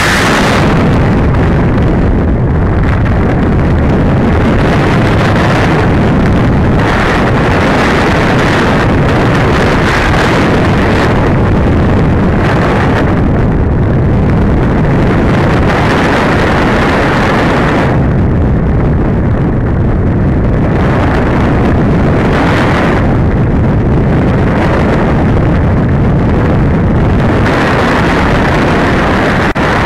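Steady, loud rush of airflow over the onboard camera's microphone on a 100-inch RC glider in unpowered flight, with no motor sound. The hiss swells and fades every few seconds as the glider turns in a thermal.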